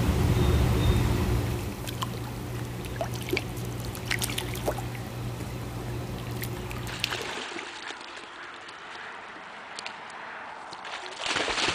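Trickling and splashing water as a puppy swims in a backyard pool, over a steady low mechanical hum with a few light clicks. About seven seconds in the hum stops abruptly and only quieter water sounds remain.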